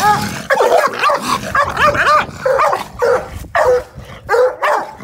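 Coonhound barking rapidly at a raccoon in a live trap, about two barks a second, each bark rising and falling in pitch.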